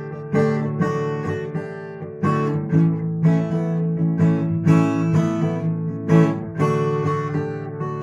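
Acoustic guitar strummed in a steady rhythm, playing D and A major chord shapes with the little finger added on the first string at the third fret to colour the chord.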